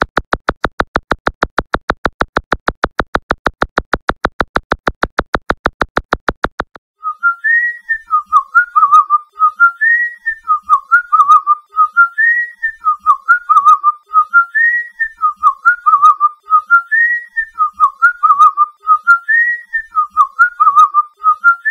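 A fast, even train of buzzing pulses, about five a second, stops about seven seconds in. Then a short whistled phrase, rising and then warbling down, repeats over and over, about every two seconds.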